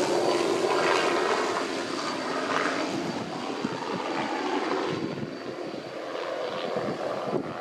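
Aircraft engine droning overhead, gradually fading away.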